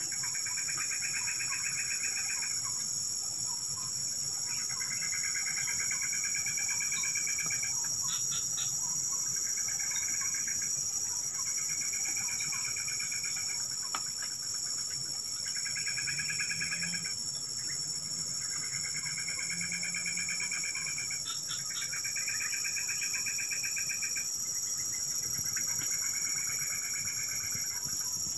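Insects calling in the grass: a steady high-pitched drone, with repeated pulsed trills about one to two seconds long, coming every couple of seconds.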